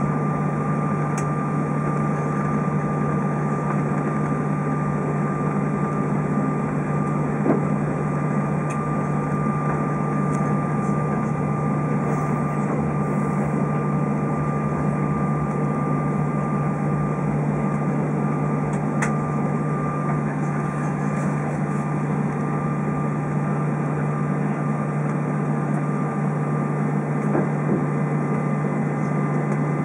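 Cabin noise of an Airbus A320 taxiing with its engines at idle: a loud, steady low hum with a constant high whine over it. A couple of faint clicks come in the middle.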